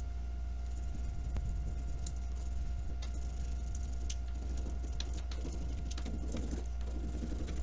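Hands rubbing and handling a crayon drawing on paper: scratchy rustles and small clicks, busier in the second half, over a steady low electrical hum.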